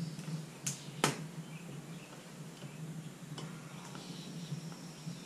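A few sharp clicks and taps from small parts being handled, the loudest about a second in, over a steady low hum.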